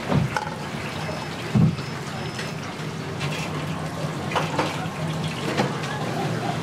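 Hot water sloshing and pouring as a bowl of udon noodles is dipped into a pot of water and filled from a ladle, with two dull thumps in the first two seconds. A steady low hum runs underneath, and a few light clicks come later.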